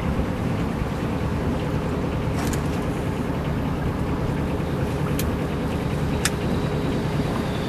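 Small canal tour boat's engine running steadily under way, with three sharp clicks.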